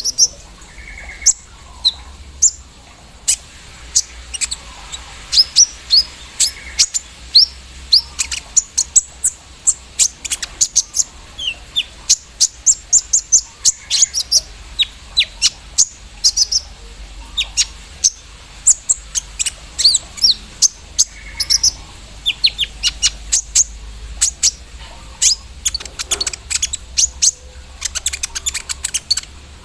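Kolibri ninja (a sunbird) singing: a long run of sharp, very high chirps that sweep downward, many fired off in quick rattling clusters, in the fast machine-like style that keepers call 'mesin bordir' (embroidery machine).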